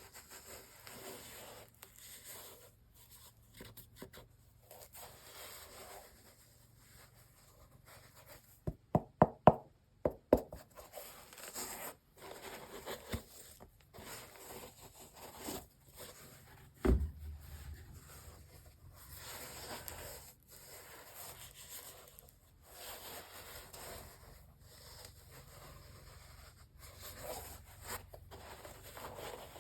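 Sneakers and their cardboard shoebox being handled, with soft rustling and scraping. A quick run of about six sharp knocks comes about nine seconds in, and a single thump around seventeen seconds.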